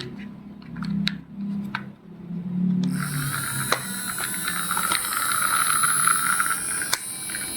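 Small electric motor of a battery-powered toy whirring steadily, switching on about three seconds in, with scattered clicks of plastic parts before and during it.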